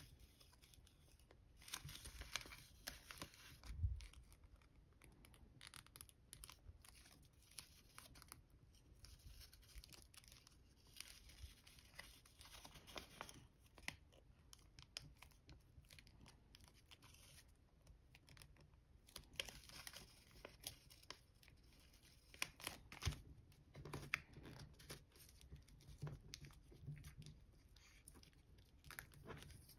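Faint, intermittent crinkling and crackling of metallic gold origami paper as fingers crease and fold it, with a few louder rustles scattered through.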